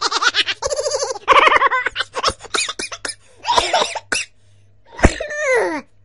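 Laughter sound effect: rapid runs of 'ha-ha' laughing, breaking into short separate bursts, with a last laugh about five seconds in that slides down in pitch.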